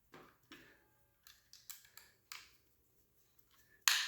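Small parts of a paintball marker handled during disassembly: a few short scrapes and clicks as a retaining nut and covers are worked loose, then one sharp knock near the end.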